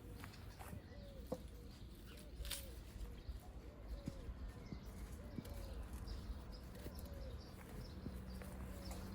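A bird calling in a long run of short, arched notes, one or two a second, faint over a low rural background rumble.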